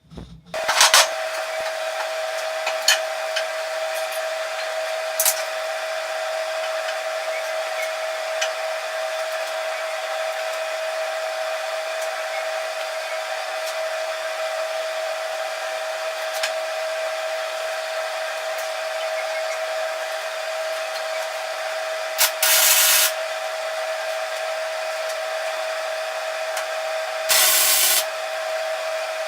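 Electric grinder running steadily and grinding a steel anvil body to rough shape: a constant whine over a hiss. It starts about half a second in, and there are two short louder, hissier stretches near the end.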